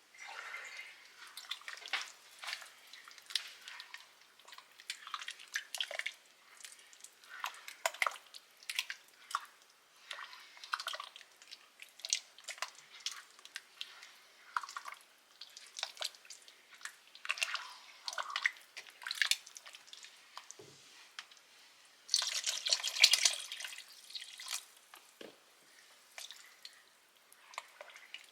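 Kitchen cooking noises: scattered drips, clicks and small splashes of water, with a louder rush of noise lasting about two seconds about 22 seconds in.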